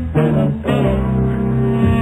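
Background music with plucked guitar notes over sustained bass notes.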